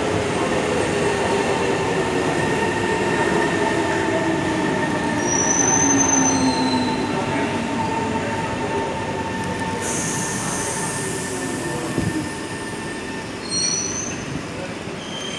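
SMRT C151 metro train arriving and braking to a stop at a platform: a motor whine falling in pitch as it slows, over a steady rumble of wheels on rail. Brief high-pitched squeals come about halfway through and again near the end.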